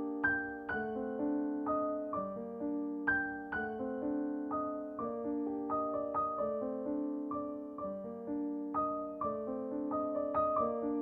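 Background piano music: a gentle melody of single notes played over held chords at an unhurried pace.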